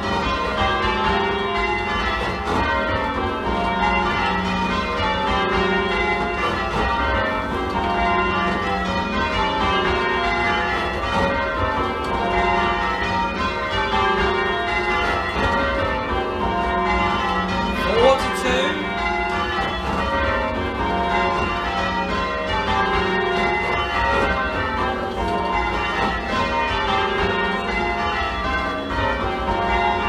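A ring of eight church bells in F, tenor about 15 cwt, rung full-circle in an even, continuous rhythm of strikes; the trebles sound a little shrill against the heavier back bells. A short sharp sound cuts in briefly just past the middle.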